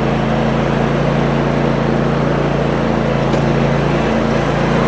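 Cub Cadet zero-turn mower's engine running steadily as the mower is driven along.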